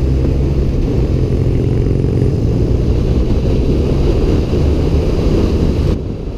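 BMW R80 air-cooled flat-twin motorcycle engine running steadily under way, heard from on the bike with the rush of riding at speed. The sound drops off abruptly near the end.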